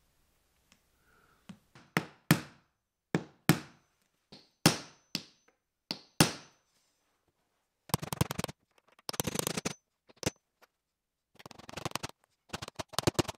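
Claw hammer striking a nail, then a nail set, into wooden baseboard trim: about ten sharp, ringing strikes in the first half. After a short pause come several bursts of rapid clattering and scraping.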